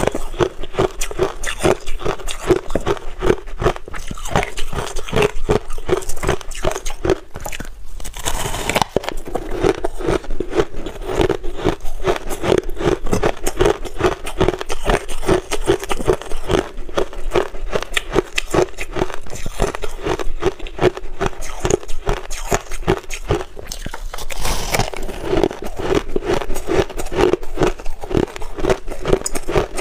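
Crushed ice being chewed and squeezed by hand, close up: a dense, continuous run of crisp crunches and crackles.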